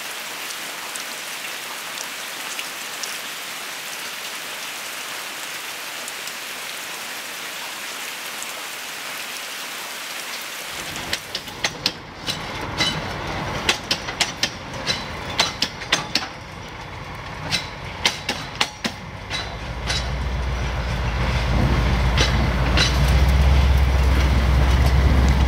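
Steady rain falling. About eleven seconds in it gives way to rail wheels knocking over track joints in an irregular series of sharp clacks. From about twenty seconds a low engine drone builds up and becomes the loudest sound.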